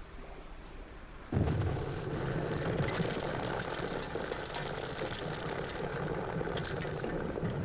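Storm sound effect: a sudden loud rumbling, rushing noise starts about a second in and drops back near the end.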